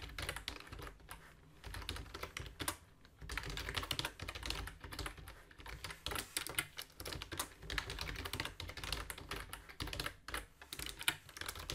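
Typing on a computer keyboard: quick runs of keystrokes broken by a few short pauses.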